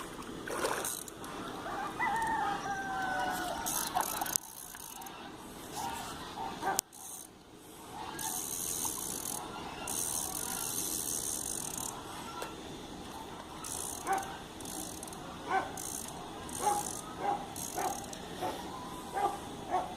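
A fishing reel clicking, its ratchet ticking in short runs that grow more frequent near the end. A rooster crows once about two seconds in.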